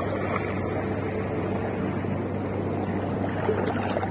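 Steady wash of shallow seawater and wind noise on the microphone over a constant low hum.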